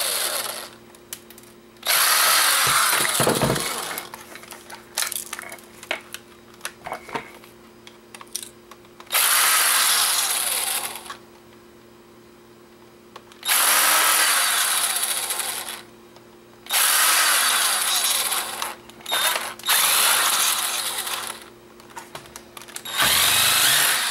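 Cordless power screwdriver running in short spells to back out the small screws of a camcorder's case: about five runs of one to two seconds each, with light clicks and taps of handling in between.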